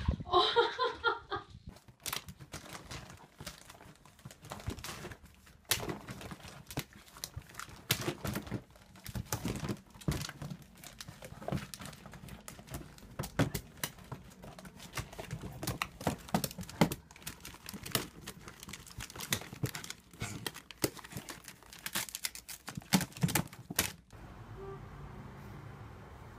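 Plastic crinkling and rustling with scattered knocks and bumps as a cat scrambles among plastic bags and storage bins. It starts a couple of seconds in and stops suddenly near the end. A brief voice-like cry comes right at the start.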